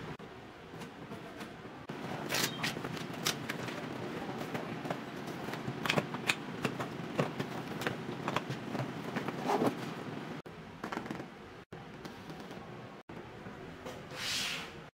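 Handling noise from a nylon and clear plastic toiletry bag: rustling and crinkling, with sharp clicks and ticks as it is handled and small bottles are set down, and a brief louder rustle near the end.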